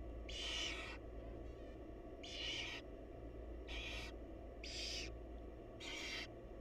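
Barn owl nestlings begging with repeated harsh hissing calls, five in a row, each about half a second long, coming roughly every second and a half, over a steady low hum.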